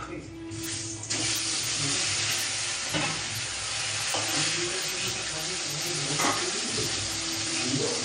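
Pieces of shol fish going into hot oil in a steel wok and frying with a steady sizzle. The sizzle sets in suddenly about a second in, as the fish hits the oil.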